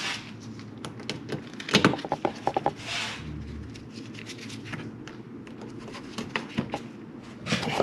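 Scattered clicks and knocks of plastic cowl trim and push-pin clips being handled and fitted into place, with a quick cluster of sharp clicks about two seconds in and a brief rustling scrape about a second later.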